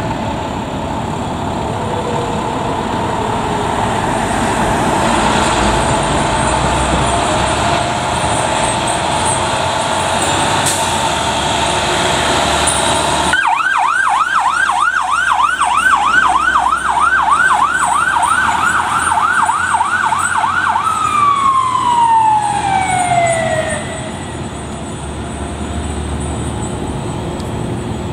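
Fire truck engine and street noise, then an electronic siren on a fast yelp, sweeping up and down about three times a second, that about seven seconds later slides into one long falling tone as it winds down.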